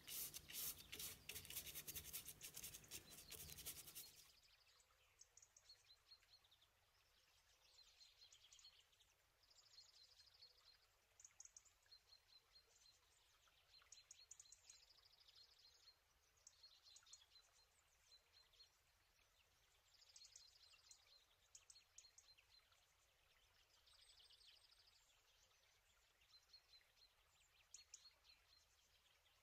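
A paintbrush scrubbing watercolour onto card for about four seconds, then near quiet with faint bird chirps coming in short clusters every few seconds.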